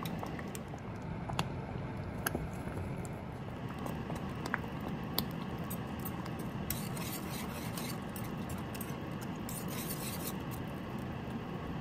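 Thick rice congee bubbling in a metal pot while a wire whisk and then a spoon stir it. There are a few light clicks of the utensil against the pot in the first half, then scraping against the pot in two spells in the second half.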